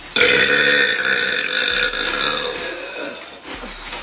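A woman's single long, loud burp that starts abruptly and trails off after about three seconds.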